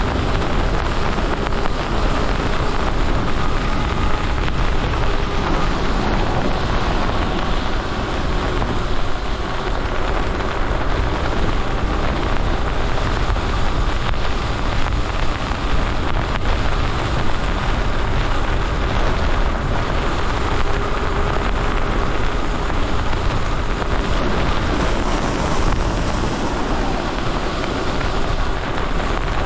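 Steady wind buffeting on the microphone from an electric bike ridden at speed in the rain, mixed with the hiss of tyres on a wet road. A faint steady whine runs underneath.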